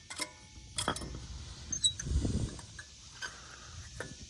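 Metal clicks and clinks as a new brake pad is worked into the new clips on a 2020 Ram 1500's caliper bracket, with a dull bump about halfway through.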